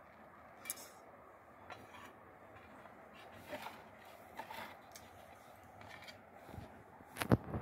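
Kitchen handling noise from a gujiya mould, dough and a steel plate: soft rustles and scattered small clicks, then a few sharper clicks near the end.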